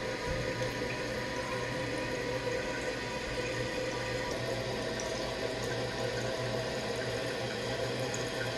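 Toilet tank refilling through a newly fitted fill valve: a steady rush of water into the tank, with a faint steady tone from the valve.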